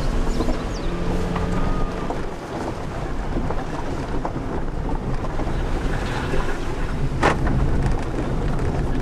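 Interior noise of a Jeep Patriot 4x4 driving over a rough dirt trail: a steady rumble of engine, tyres and suspension with small knocks and rattles from the bumpy ground, and one sharp clatter about seven seconds in.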